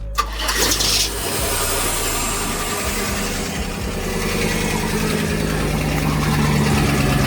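GM LS V8 engine running at idle just after being cranked, settling into a steady hum.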